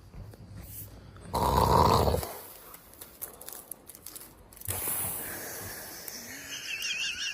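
A person snoring: one loud snore about a second and a half in, lasting under a second. A steady hiss follows, and near the end a high warbling tone comes in.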